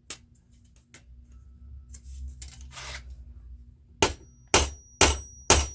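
A hammer setting a solid rivet by hand with four sharp blows, about two a second, each followed by a thin metallic ring.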